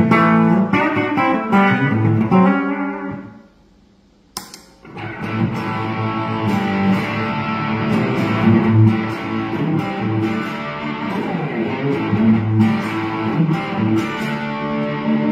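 Electric guitar, a Squier Affinity Telecaster on its bridge single-coil pickup played through a Supro tube amp, with a twangy tone. Chords ring for about three seconds, then there is a short break ended by a click. From about five seconds in, a longer run of rock riffs follows with a denser, fuller sound.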